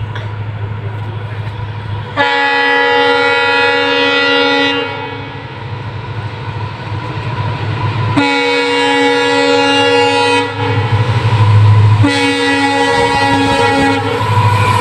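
Diesel locomotive hauling a freight train sounds its multi-tone horn in three long blasts, each about two and a half seconds, as it approaches, over a steady low engine rumble.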